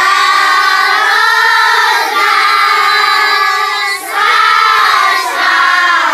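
A group of children chanting Arabic letter syllables aloud in unison, in a drawn-out sing-song recitation. The chant comes in three long held phrases, with short breaks about two and four seconds in.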